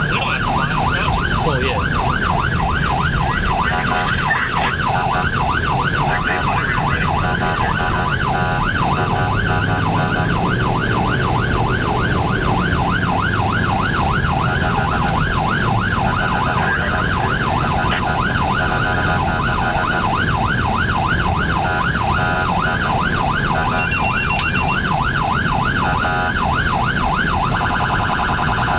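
Electronic emergency-vehicle siren in rapid yelp mode, sweeping quickly up and down without a break, heard from inside the responding truck's cab over engine and road noise. Near the end it switches to a faster, denser pattern.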